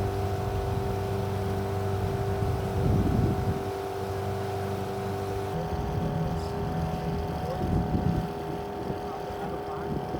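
Small boat motor running at a steady pitch, with people's voices here and there.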